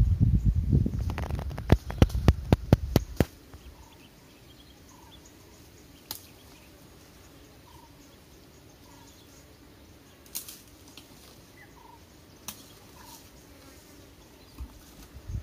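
Asian elephant tearing leafy branches from a roadside bush: rustling and a quick run of sharp twig snaps for about the first three seconds. Then it goes quiet, with a faint chirp repeating about once a second and a few single snaps.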